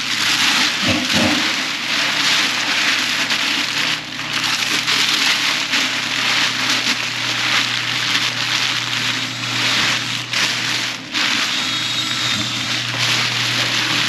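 Walk-in cooler's evaporator fans blowing: a steady, loud rush of air with a low hum beneath it.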